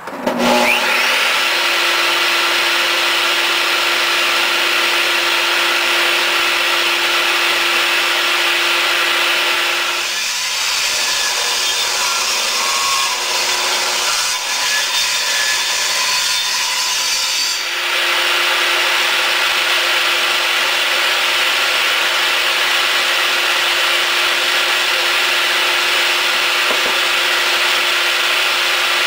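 Bosch electric power saw cutting lengthwise through wood to mill it into boards. A steady motor whine sits under the cutting noise. It starts abruptly, changes and roughens for several seconds partway through, then settles back to the same steady cut.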